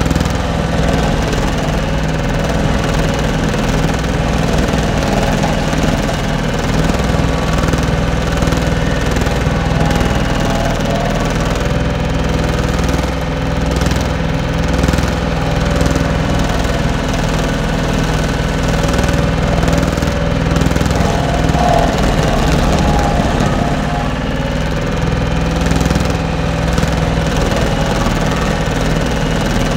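Skid steer engine running steadily under load, driving a homemade stump grinder whose cutter disc is grinding into a stump, heard from inside the cab with wood chips spraying against it.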